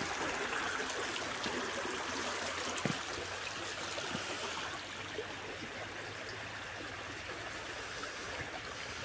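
Shallow stream running over flat rocks and stones, a steady babbling rush of water, with a single short click about three seconds in.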